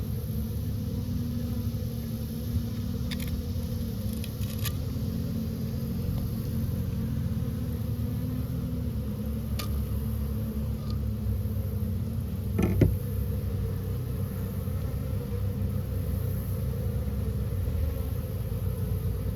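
Steady low hum of a mass of honeybees buzzing around an opened hive, with a few light clicks and knocks from comb and frames being handled, the loudest about two-thirds of the way in.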